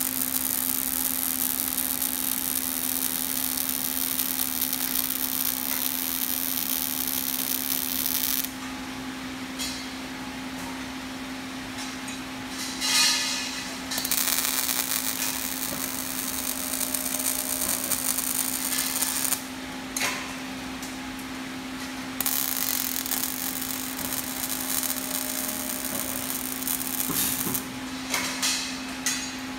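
Robotic MIG welding arc hissing and crackling in several weld passes: it runs for about the first eight seconds, stops, flares in a short loud burst about thirteen seconds in, runs again for about five seconds, pauses, runs again, and ends in short bursts near the end. A steady hum runs under it throughout.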